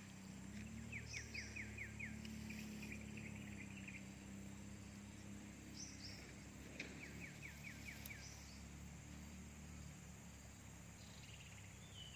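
Faint outdoor ambience with a small bird calling: two short runs of about seven quick chirps, one about a second in and another near the middle, with a few higher single notes, over a steady low hum.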